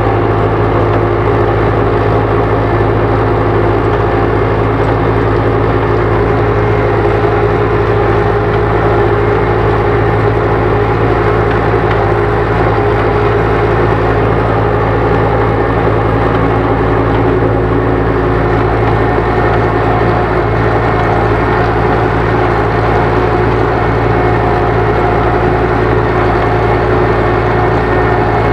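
Ursus tractor's four-cylinder diesel engine running steadily under load while pulling a plough, heard from inside the cab.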